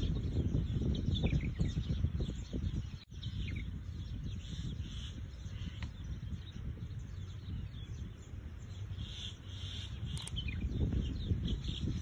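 Small songbirds chirping and twittering in short, scattered calls over a low rumble, with a brief dropout about three seconds in.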